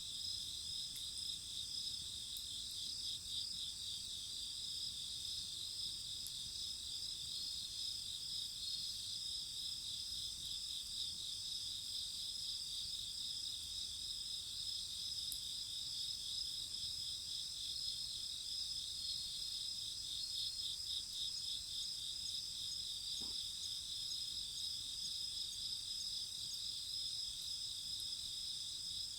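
Chorus of crickets and other singing insects: several steady high trills at different pitches, the lowest of them pulsing quickly.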